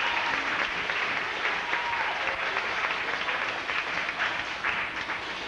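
Audience applauding, with a few short calls over the clapping, tapering off near the end.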